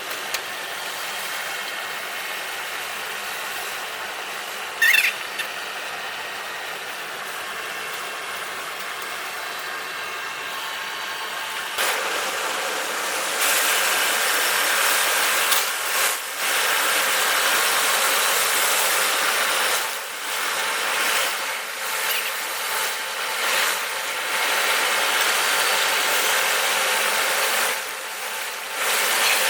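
A power tool working, steady and fairly quiet at first with a single sharp click about five seconds in, then louder from about twelve seconds in with several short breaks.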